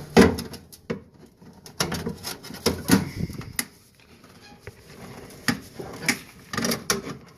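Furnace sheet-metal parts being handled and fitted back on: a run of irregular clicks, knocks and clanks, the loudest just after the start.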